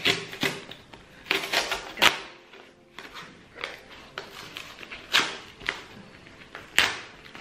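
A cardboard book mailer being torn open by hand: short, uneven bursts of ripping and crinkling cardboard, several times over. It is a stiff one to open.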